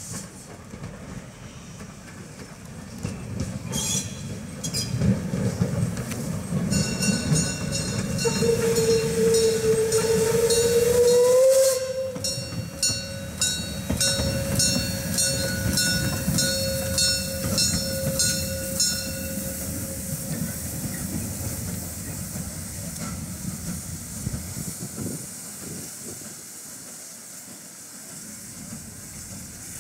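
Steam tank locomotive running slowly past at close range: a low rumble and regular clicking as it goes by, with a long steady tone that starts about eight seconds in, rises slightly in pitch and then carries on faintly. The sound then fades as the engine pulls away.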